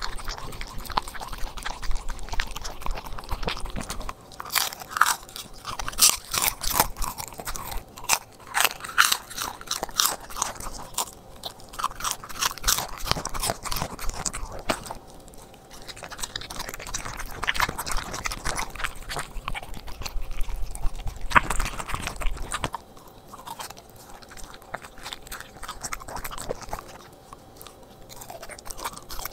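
A corgi crunching and chewing its food: small whole fish (whitebait) and raw broccoli. It makes a run of sharp, wet crunches that is densest in the first half and thins out toward the end.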